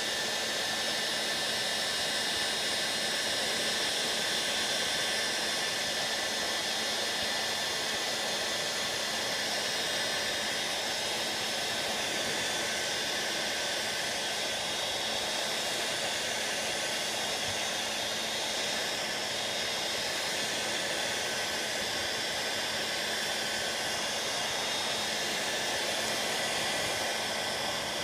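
Electric heat gun running steadily: a constant airy blow with a faint steady motor whine, as it heats shrink tubing over wire butt connectors.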